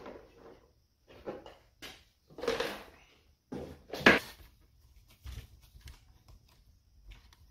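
Plastic ammo can being handled and shifted on a wooden workbench: a few hard-plastic knocks and a short scrape, the loudest a sharp clack about four seconds in.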